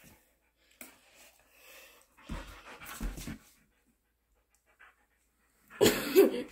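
Siberian husky panting in soft breathy bursts, then giving a short loud grumbling vocalization near the end.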